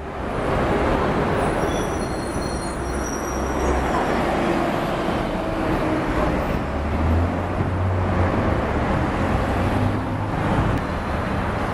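Busy city street traffic: cars and a bus driving past close by, a steady mix of engines and tyre noise. A deeper engine rumble swells from about seven to ten seconds in as vehicles pass near.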